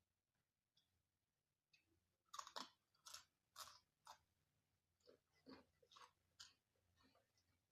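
Close-miked chewing of crunchy food: quiet at first, then a run of crisp crunches from about two seconds in, followed by softer, irregular chewing crunches.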